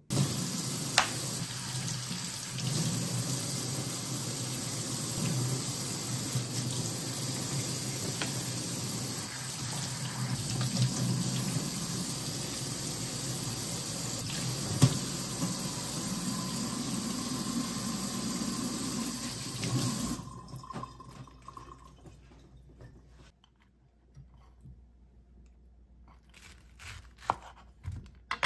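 Kitchen tap running onto mushrooms in a metal mesh colander in the sink, a steady splashing of water that stops about twenty seconds in. Quieter handling follows, with a few short clicks near the end.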